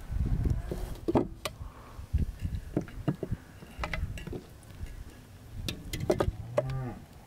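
Raw meat pieces are handled and set into a large aluminium pot of water, giving soft thuds and scattered knocks and clicks against the pot and table. There is a short pitched sound near the end.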